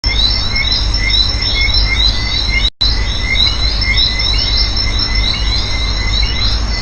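Forest ambience: birds chirping over and over above a steady insect drone and a low rumble, cut off briefly for a moment about two and a half seconds in.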